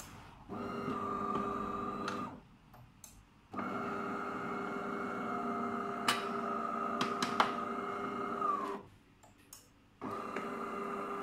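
De'Longhi bean-to-cup espresso machine humming as it heats up after being switched on. The hum runs in three stretches, cutting out for about a second twice, with a couple of sharp clicks in the middle stretch.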